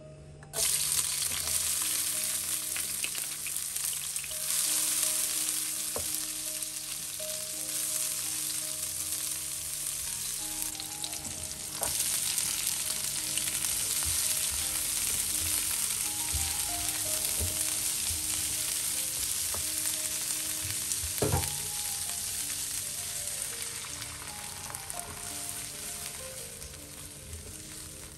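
Sliced shallots and chilies hit hot oil in a stone-coated wok about half a second in and sizzle steadily as they are stir-fried, with the stirring continuing as greens are added. A couple of sharp knocks sound from the pan, and the sizzle eases off near the end.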